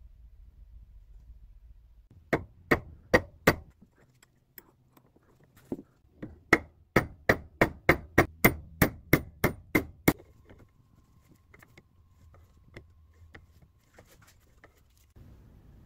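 Hammer blows on a thin metal wire ring laid over the steel anvil of a bench vise: a run of four sharp strikes, a pause with a few single blows, then about a dozen more at roughly three a second before it stops.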